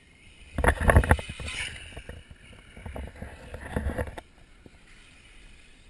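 Wind and handling noise on the camera microphone: two loud rushing gusts, the first about half a second in and the second near four seconds, then a low steady hiss.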